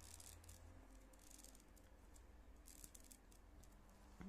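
Faint rustling and clicking of rolled paper weaving tubes being handled as fingers pull a woven knot tight, in short scattered scratches.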